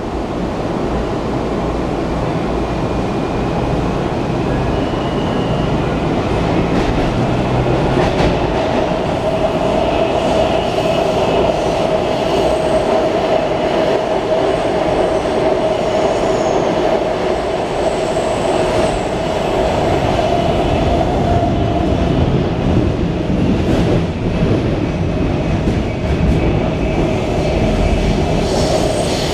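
Interior of a Washington Metro 3000-series railcar pulling out of a station and running into the tunnel: steady rumble of wheels and running gear that grows louder over the first few seconds, with a steady whine through the middle that fades near the end.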